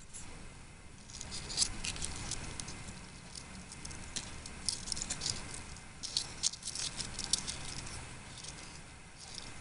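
Miniature fried potato sticks being moved with chopsticks and tipped from a small dish onto a paper towel: light, irregular crackling and ticking throughout, busiest from about one second in and again around six to seven seconds.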